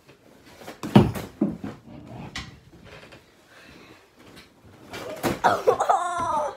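Soft thumps and rustling of pillows and stuffed animals being handled and dropped on a bed, with one sharp thump about a second in. Near the end a child's voice makes a short, wavering vocal sound.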